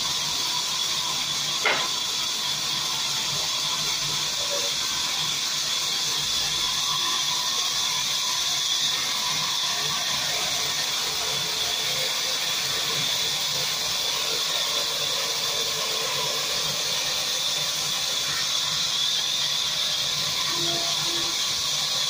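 Sawmill band saw running and cutting through timber, a steady high hiss that never lets up. One sharp click about two seconds in.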